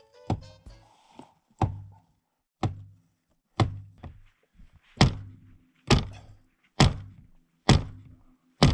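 A series of dull thunks, about one a second, mostly getting louder toward the end.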